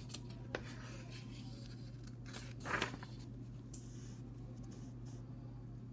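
A picture-book page being turned: a short paper rustle about halfway through and a few faint handling clicks, over a low steady hum.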